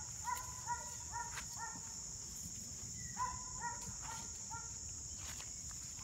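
A steady, high-pitched drone of insects, with two short runs of repeated calls, one near the start and one about three seconds in, and a few faint ticks or rustles.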